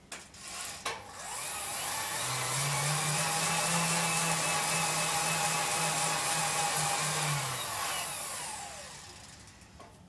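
Household electric wood chipper's motor, run directly off a pedal-powered DC generator, spinning up with a rising whine, running steadily for several seconds, then winding down with a falling whine. A few clicks come just before it starts.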